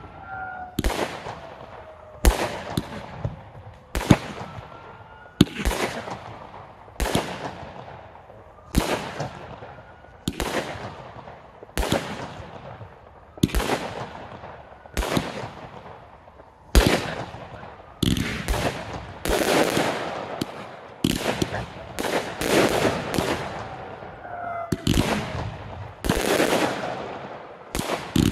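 Fireworks display: aerial shells bursting in a steady series of sharp bangs, about one every second and a half, then faster, overlapping bangs in the last ten seconds.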